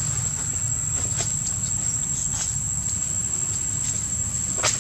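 Steady high-pitched insect drone over a constant low rumble, with a few short crackles in the dry leaf litter, the loudest near the end.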